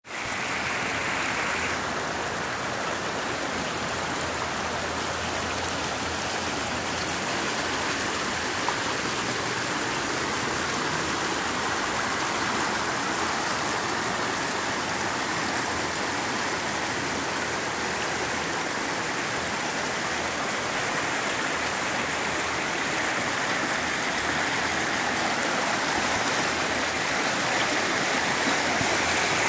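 Shallow river rushing over rocky riffles and small rapids: a steady rush of water, growing a little louder near the end.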